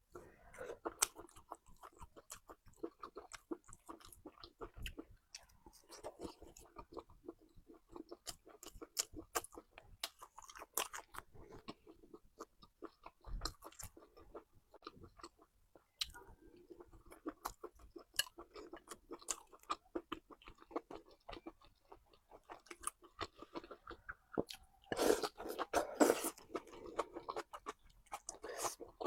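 Close-miked chewing and mouth sounds of a person eating, with wet smacks, small crunches and bites; a louder, busier stretch of chewing comes near the end.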